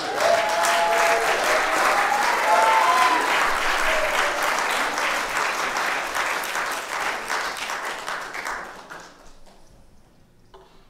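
Church congregation applauding, with a few voices calling out over the clapping in the first few seconds. The applause dies away about nine seconds in.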